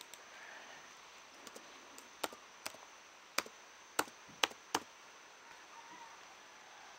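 About eight sharp clicks of computer input, irregularly spaced over a few seconds, over a faint steady hiss.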